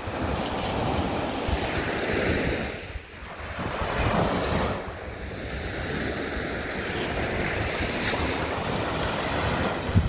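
Small sea waves breaking and washing up a sandy beach, surging louder about four seconds in, with wind buffeting the microphone.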